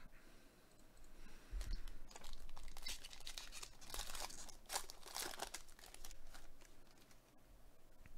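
Foil wrapper of a 2021 Panini Chronicles Baseball card pack being torn open and crinkled by gloved hands: a run of crackling rustles starting about a second and a half in and dying away a couple of seconds before the end as the cards are pulled out.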